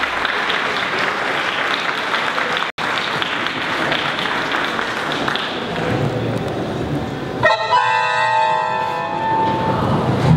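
Audience applauding at the end of a tango song, with a momentary dropout in the sound a few seconds in. The applause cuts off about seven seconds in, and a brief held chord of several steady tones follows.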